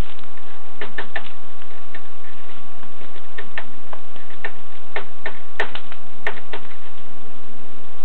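Blue jay pecking at seed in a wooden feeder tray: a dozen or so irregular sharp taps of its bill, some in quick pairs, with two sharper ones a little past the middle.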